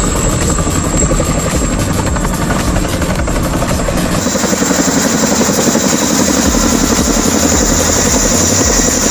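Boeing Chinook tandem-rotor helicopter flying low past, its twin rotors giving a fast, steady chop.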